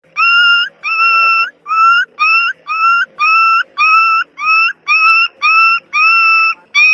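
Puppies crying: a steady run of high-pitched whimpering cries, about two a second, each rising slightly in pitch.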